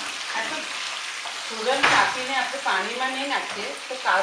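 Diced sweet potato sizzling in hot oil in a frying pan while it is stirred with a metal slotted spoon, with a sharp knock of the spoon against the pan about two seconds in.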